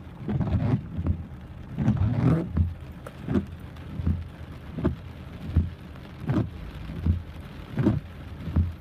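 Steady rain, with a regular low thump about every three quarters of a second.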